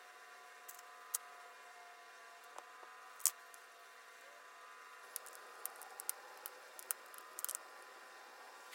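Faint, scattered small clicks and taps from handling small objects at a work surface, coming thicker in the last few seconds, over a steady faint electrical hum.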